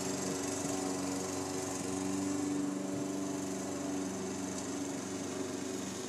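Walk-behind push lawn mower's small engine running steadily while cutting grass, an even hum that holds the same pitch throughout.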